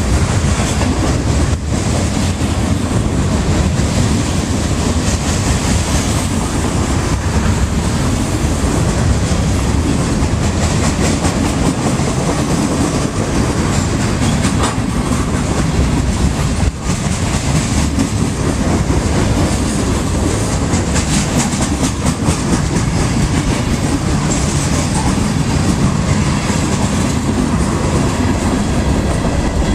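Freight train of tank cars, covered hoppers, boxcars and open-top hoppers passing at close range: a steady rumble and clatter of steel wheels on the rails, with no letup.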